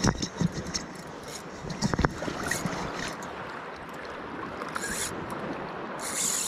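Shallow seawater sloshing and lapping, with a few sharp clicks and knocks near the start and again about two seconds in, and short bursts of hiss near the end.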